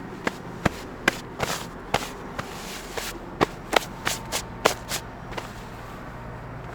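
A series of sharp, irregular clicks and knocks, about fifteen in five seconds and ending about a second before the end, over a steady low hum.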